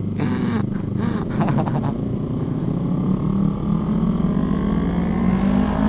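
Motorcycle engine running under way, then pulling up through the revs with a steadily rising pitch over the second half.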